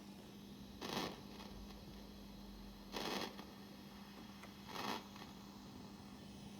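Fender Princeton guitar amplifier sitting with a steady low hum, broken three times by short bursts of hiss about two seconds apart: the strange hissing fault the owner is asking about.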